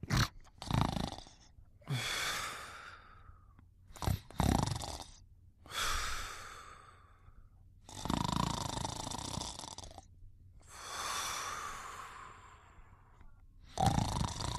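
Snoring: slow, heavy sleeping breaths, shorter rasping snores alternating with long, breathy exhales that carry a faint whistle, one every two to three seconds.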